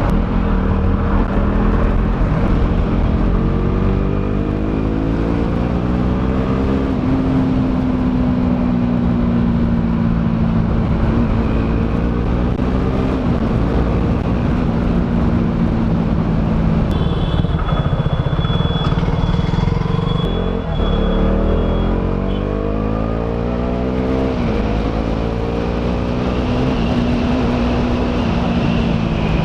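KTM Duke 200's single-cylinder four-stroke engine on its stock exhaust, ridden on the road. The revs climb and drop back several times as it shifts through the gears.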